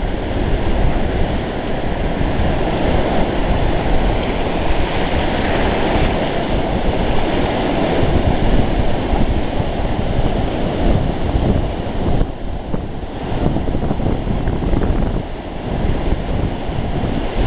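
Sea surf washing on the beach, with wind buffeting the microphone: a loud, steady rushing noise that eases briefly twice in the later part.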